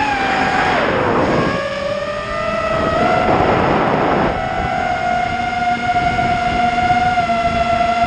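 Eachine Wizard X220 FPV quadcopter's brushless motors and propellers whining steadily, the pitch dipping about a second in and climbing back. Rushing air noise over the onboard microphone comes in about a second in and again around three to four seconds in.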